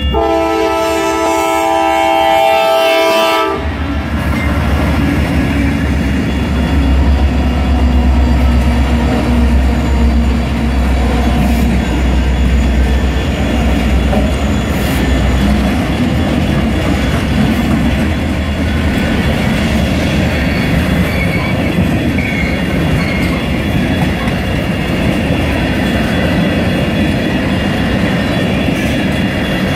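Diesel freight locomotive horn sounding a multi-note chord, which cuts off about three and a half seconds in. The diesel locomotives then rumble past, followed by the steady clickety-clack of covered hopper cars rolling over the rails.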